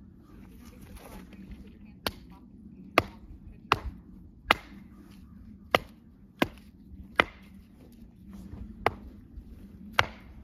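Hatchet chopping into a short log standing on a chopping block, splitting it: about nine sharp wooden chops starting about two seconds in, roughly one every three-quarters of a second, with a short pause near the end.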